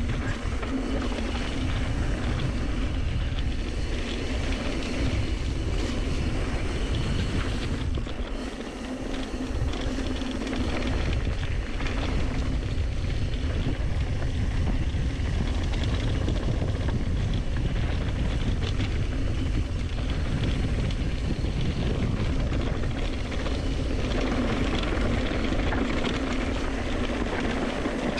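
Wind rushing over a chest-mounted action camera's microphone as a Specialized Turbo Levo SL e-mountain bike rolls fast down a dirt singletrack, tyres crunching and the bike rattling. It eases off briefly about eight seconds in.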